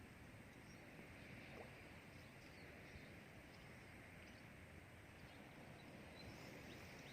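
Near silence: faint steady outdoor background hiss, with a few faint, short high chirps.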